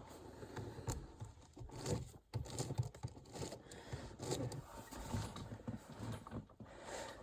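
Handling noises: scattered faint clicks, scrapes and soft knocks as hands move things about.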